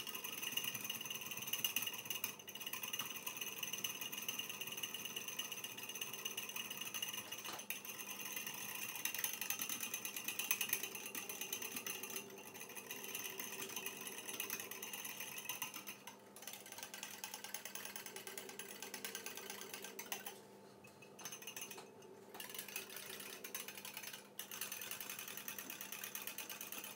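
Small wire whisk beating instant coffee, sugar and water by hand in a ceramic bowl to whip dalgona coffee: a fast, continuous clicking and scraping of the wires against the bowl, broken by a few short pauses in the second half.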